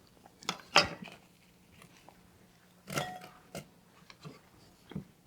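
Onion being chopped into small pieces: five short separate crunches, the loudest about a second in and about three seconds in.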